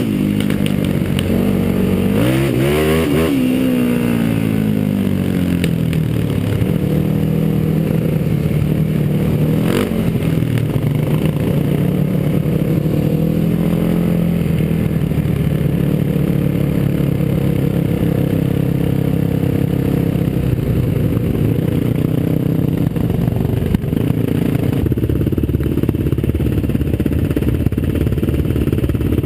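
Single-cylinder four-stroke sport quad engine running under way, its pitch rising and falling as it revs in the first few seconds, then running at a fairly steady speed.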